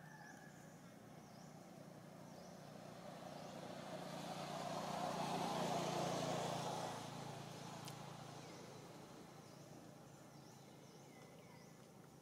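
A motor vehicle passing by, its engine and road noise growing louder over several seconds to a peak about six seconds in, then fading away. Faint, high, repeated chirps continue underneath.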